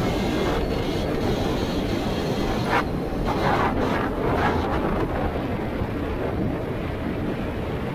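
CFMoto CForce 800 ATV's V-twin engine running steadily while the ATV is ridden, mixed with wind and ground rumble, with a few short hissing rushes about halfway through.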